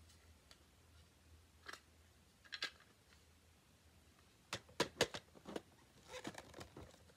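Hard plastic parts of a NERF blaster clicking and knocking as they are handled and pushed together. A few scattered clicks at first, then a quick cluster of sharper clicks from about halfway through.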